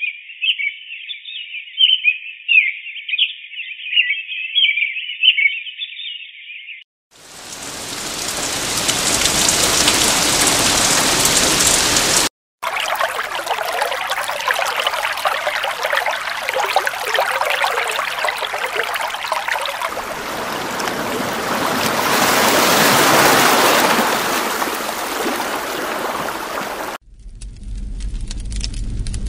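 A run of nature-sound tracks. Birds chirp for about seven seconds, then a steady rushing hiss plays. After a short break comes the even running water of a brook, and near the end a campfire crackles.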